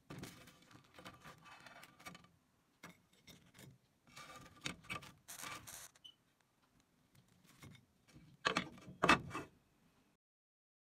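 Spatula scraping and tapping on a griddle pan as slices of toast are lifted out and set down on a ceramic plate, in short scrapes and knocks with the loudest pair near the end.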